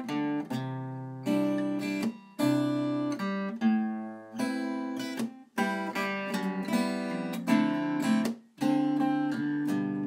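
Background instrumental music of plucked string notes and chords, each note starting sharply and fading, the chords changing every second or so.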